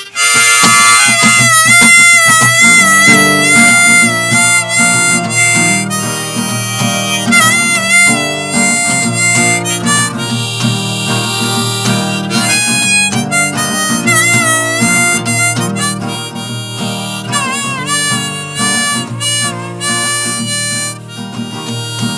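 Instrumental song intro: a harmonica plays a melody with long held notes and bent pitches over acoustic guitar chords. It starts suddenly and loudly at the beginning.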